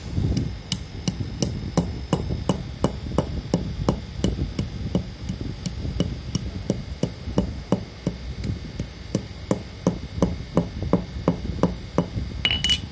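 Dry multani mitti (Fuller's earth clay) chunks struck over and over with a hand-held metal cylinder, about three crunching knocks a second as the clay breaks into smaller pieces. Near the end comes a brighter metallic clink.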